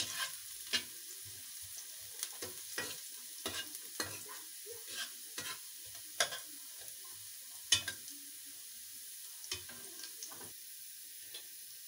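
Chopped garlic frying gently in hot ghee in a metal pan, a steady light sizzle, with a metal spatula scraping and knocking against the pan at irregular moments as it is stirred.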